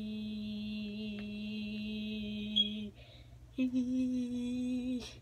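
A child's voice holding a long, steady note, then after a short break about three seconds in, a second, slightly higher held note.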